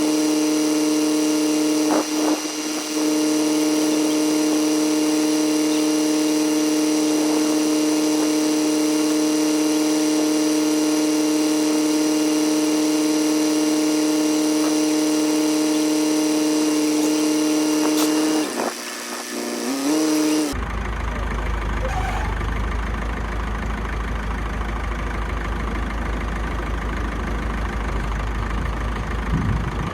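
Tractor diesel engine running steadily, its pitch briefly dipping and rising about two-thirds of the way through. After an abrupt change just past that point, a deeper, rougher engine idle.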